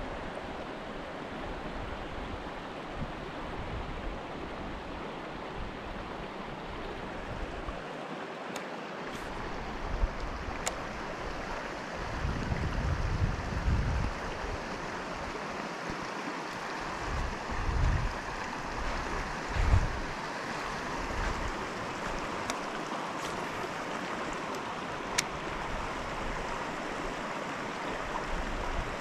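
Steady rush of running creek water, with occasional low wind buffets on the microphone.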